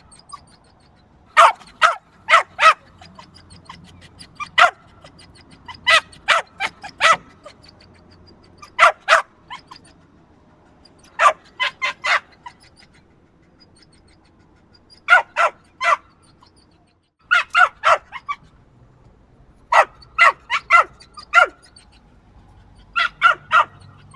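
Small yappy dog barking in quick bursts of two to five sharp, high yaps, with pauses of a second or two between bursts.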